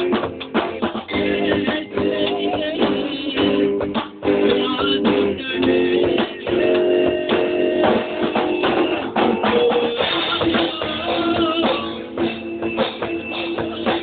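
Rock band playing, with guitar over a drum kit.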